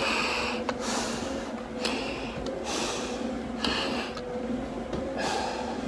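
Hard breathing through a firefighter's full-face respirator mask from the exertion of climbing stairs: about six loud, hissing breaths, roughly one a second.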